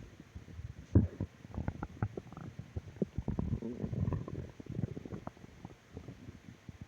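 A stomach growling and gurgling: a loud rumble about a second in, then a run of short, irregular gurgles.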